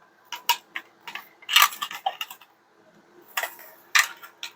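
Hard plastic toy-playset pieces clicking and knocking together in a quick irregular series as the parts of a small commentator table are pressed into place.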